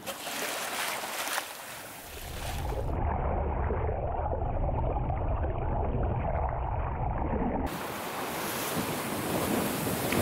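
Rushing sea and wind noise from a sailing yacht under way. From about three to eight seconds in the sound turns muffled and dull, with the highs gone, as heard through an underwater camera, then opens out to the rushing sea again.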